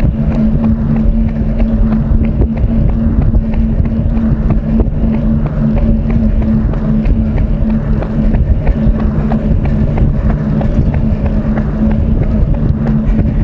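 A runner's quick, regular footfalls over a loud, constant rumble with a steady low hum.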